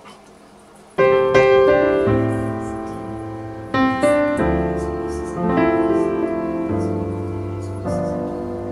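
Background piano music: chords struck and left to ring, starting about a second in.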